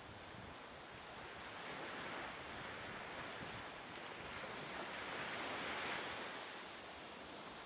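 Steady wash of sea waves and wind, swelling and easing gently over a few seconds.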